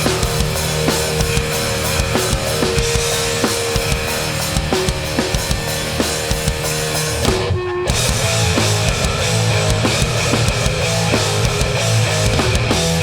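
Live hardcore punk band playing an instrumental stretch with drums, distorted guitars and bass. The band cuts out for a brief stop about seven and a half seconds in, then comes straight back in.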